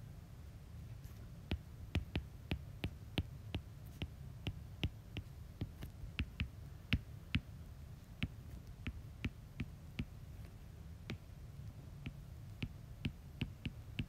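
Stylus tip tapping and clicking on a tablet's glass screen while words are handwritten: irregular sharp ticks, a few a second, over a steady low hum.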